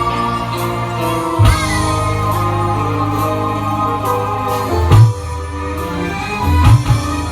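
Music played loud through a sound system being tested, with heavy sustained bass notes and loud drum hits about a second and a half in, about five seconds in, and several more near the end.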